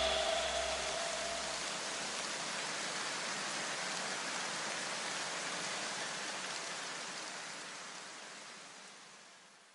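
The soundtrack music's tail after its beat stops: a steady hiss with a few low tones dying away in the first two seconds. The hiss then fades out gradually over the last seconds.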